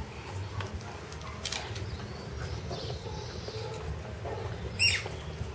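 Puppies scuffling and running on a tiled floor, with faint claw and paw clicks over a low rumble. A short, high squeak comes about five seconds in.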